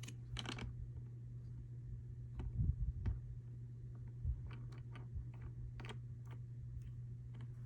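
Light plastic clicks and taps from toilet seat parts being handled and fitted, with a couple of low knocks about two and a half to three seconds in, over a steady low hum.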